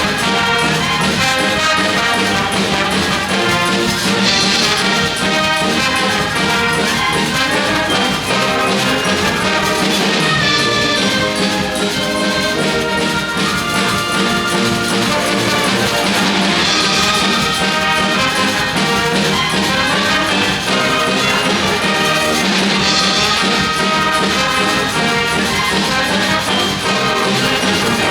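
A school wind band playing a Eurobeat arrangement of Disney tunes, brass to the fore with trumpets and trombones over a steady driving beat.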